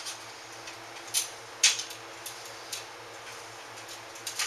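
A few short metallic clicks and rattles from an aluminium telescope tripod as its legs are handled and their wing bolts loosened, the loudest about a second and a half in.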